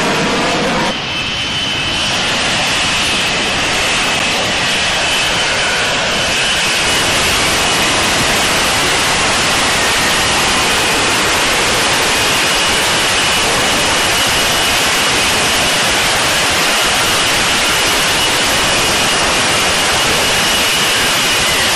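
F-35B fighter jet engine running loud and steady, a constant high whine over dense rushing noise.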